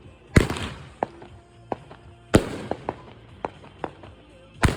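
Fireworks going off: three big booms about two seconds apart, each trailing off, with sharper pops and crackles between them.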